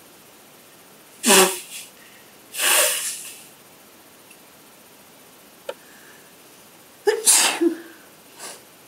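A person sneezing twice, about six seconds apart, each sneeze a sudden loud burst. A longer breathy burst follows the first sneeze, and a faint click comes between the two.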